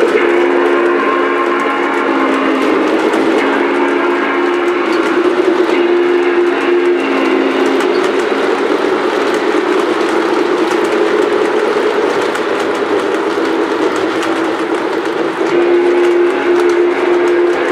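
Lionel O-scale Clinchfield Challenger steam locomotive's onboard sound system blowing its steam whistle in long two-tone blasts during the first seven seconds and again near the end, over the steady rumble and clatter of the PFE reefer cars' wheels rolling on the three-rail track.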